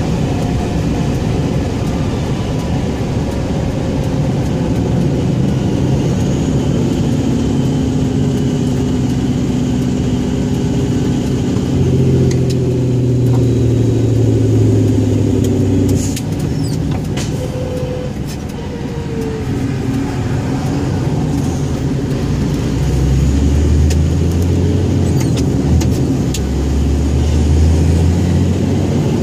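Scania 114G 340 truck's 11-litre inline-six turbodiesel running under changing load, its note shifting in pitch: it pulls louder about twelve seconds in, eases off a few seconds later, then works harder again toward the end.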